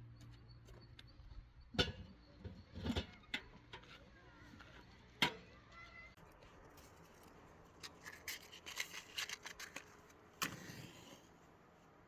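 Scattered knocks and clicks of kitchen utensils and food being handled, with a few sharper knocks standing out and a run of small quick clicks near the end.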